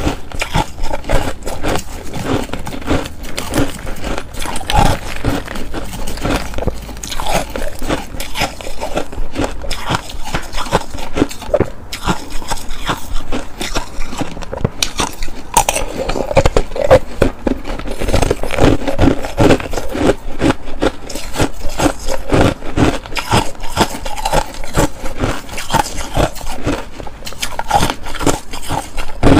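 Close-miked crunching and biting of ice, a rapid crackle of many small crunches that goes on without a break, with a metal spoon scraping through shaved ice in a glass bowl.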